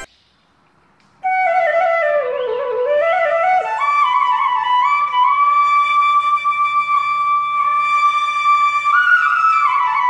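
Background music: a solo flute melody enters just over a second in, winds down and climbs back up, then holds one long note until near the end.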